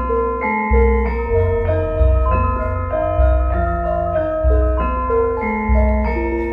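Javanese gamelan-style music: a melody of struck metal keyed instruments moving note by note, over a deep bass note about every second and a quarter.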